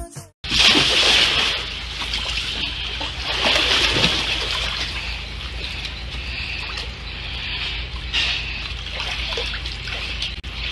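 Water splashing and sloshing in an above-ground pool as a swimmer moves through it. It swells about a second in and again around four and eight seconds in.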